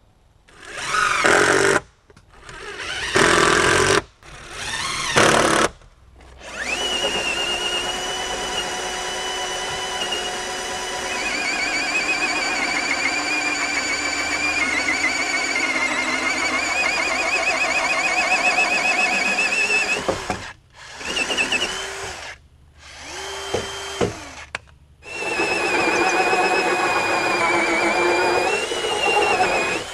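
Power drill running in a series of short runs, then one long run of about thirteen seconds whose pitch wavers and dips, then three more runs.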